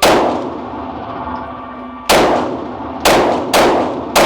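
Five gunshots at an indoor shooting range, each a sharp crack with a long echoing decay: one at the start, one about two seconds in, then three more in quicker succession near the end.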